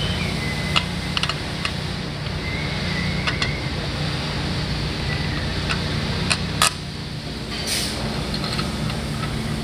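Scattered light metallic clicks and taps of bolts against a steel suspension hanger bracket as they are handled by hand, over a steady low shop hum. There is a short scraping rush about three-quarters of the way through.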